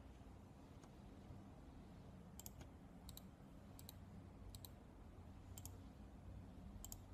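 Faint computer mouse clicks, about seven separate quick press-and-release clicks at irregular intervals, as points are placed along an outline in embroidery digitizing software.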